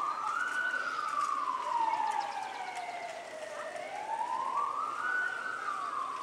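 Vehicle siren wailing: a slow rise to a high pitch, a brief hold, then a long fall, repeating about every four and a half seconds.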